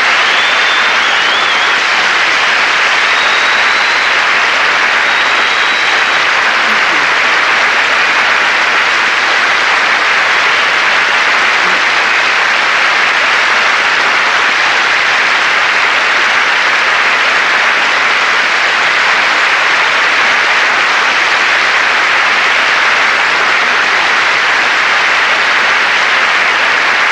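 A large studio audience giving a standing ovation: long, steady, loud applause that does not let up.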